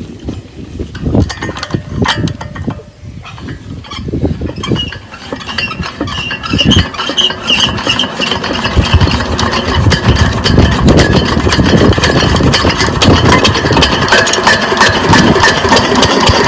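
12 HP diesel water-pump engine starting: a few seconds of irregular knocks, then it catches about four seconds in and picks up, getting louder and settling into a steady run.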